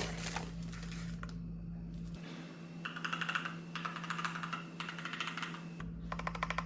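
Typing on a Keychron K2 Pro mechanical keyboard: quick runs of keystroke clicks starting about three seconds in, broken by short pauses, after a couple of seconds of faint handling rustle.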